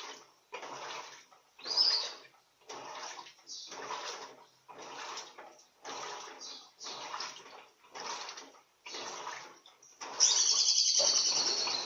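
Electrolux Turbo Economia 15 kg (LTD15) top-loading washing machine agitating a load of towels in water: a rhythmic slosh about once a second as the agitator swings back and forth. About ten seconds in comes a louder high-pitched chirping sound lasting over a second.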